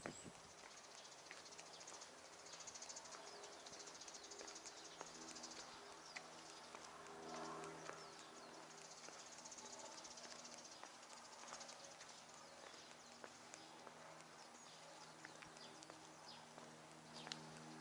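Near silence: faint outdoor ambience, with a faint high-pitched insect trill that comes and goes and a low steady hum underneath.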